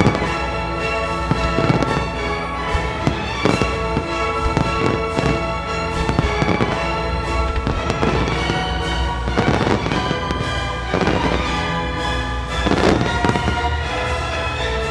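Firework shells bursting in an irregular string of bangs, heaviest past the middle, over loud music with long held chords.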